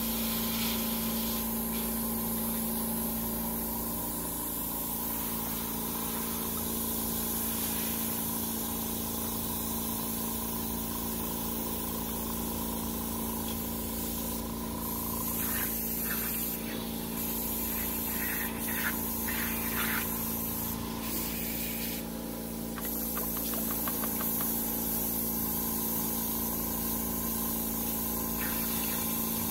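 Small airbrush compressors running with a steady hum, under the hiss of airbrushes spraying paint. The hiss stops and starts several times about midway.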